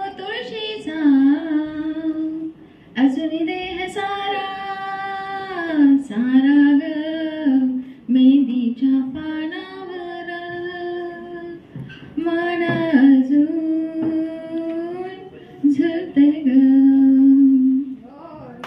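A woman singing solo into a handheld microphone, with no accompaniment, holding several long notes.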